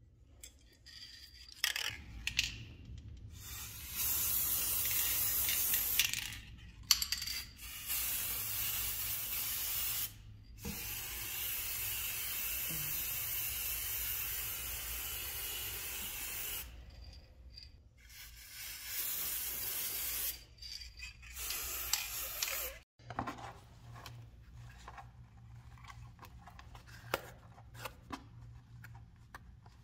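Aerosol spray paint can hissing in a series of bursts, several lasting a few seconds and the longest about six seconds, as metal flashlight parts are painted. After a sudden stop about three-quarters of the way in, faint rubbing and light clicks come from hands handling the metal flashlight head.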